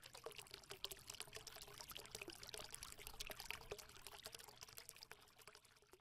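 Faint sound of liquid pouring and trickling, a dense crackle of tiny splashes, fading out near the end.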